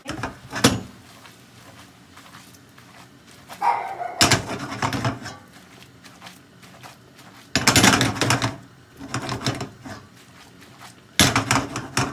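Spaghetti with cream being tossed in a nonstick frying pan on a gas hob, the pan shaking and scraping on the grate in several short bursts.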